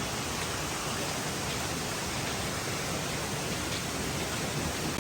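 Waterfall cascade: a steady rush of falling water.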